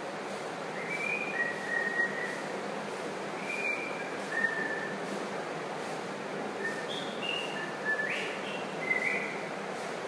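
A run of short, clear whistled notes that hop between a few pitches, over a steady hiss.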